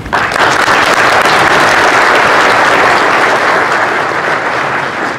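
Audience applauding, starting all at once and dying down near the end.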